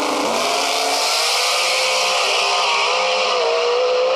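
Drag race cars accelerating hard down the strip: a loud engine note over a hissing rush, stepping in pitch a couple of times near the end as the cars shift.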